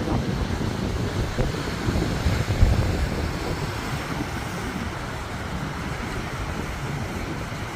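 Ocean surf washing, with wind buffeting the microphone in low rumbling gusts that are strongest about two and a half seconds in and then ease off.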